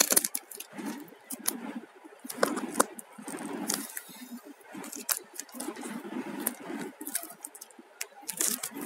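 Plastic packaging crinkling and a cardboard box being handled while its contents are pulled out: irregular crackles, clicks and rustles.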